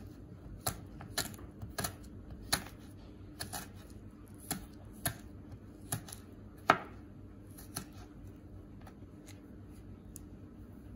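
Chef's knife slicing garlic cloves on a plastic cutting board: irregular sharp taps of the blade hitting the board, about one or two a second, growing fainter and sparser over the last few seconds.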